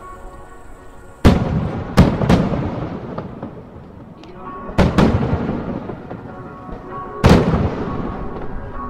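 Aerial firework shells bursting: about six sharp booms, coming in quick pairs and singly, each followed by a long echoing rumble as it dies away.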